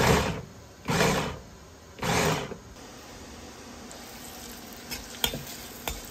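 Three short pulses of a food chopper chopping shrimp, about a second apart, kept brief so the shrimp is not ground to a powder; then a low steady hiss with a couple of light clicks.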